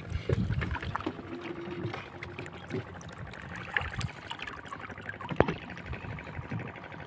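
Shallow seawater splashing and dripping as a gill net is hauled up out of the water by hand, with scattered small knocks and one sharp knock about five seconds in.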